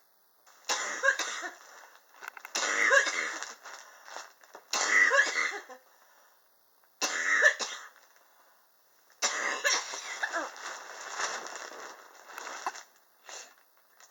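A person coughing repeatedly in fits of several coughs each, with short quiet pauses between them and the longest fit near the end. The person says the cough is triggered by extreme indoor temperatures.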